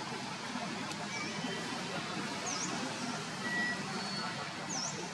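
Steady outdoor background noise with a few short, high-pitched chirps on top, two of them quick dips and rises in pitch about halfway through and near the end.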